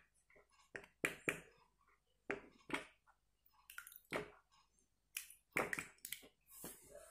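A green plastic spoon stirring and scooping a thick white slime mixture in a bowl, making short sticky clicks and squelches at irregular intervals, about ten of them.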